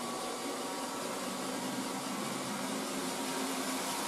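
Robot vacuum cleaner running, a steady whirring noise with a faint low hum.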